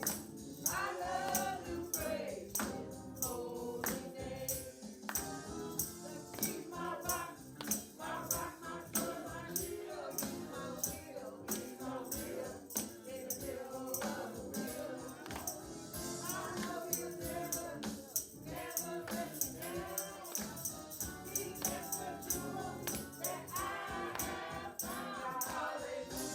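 Gospel music: voices singing over a tambourine keeping a steady beat.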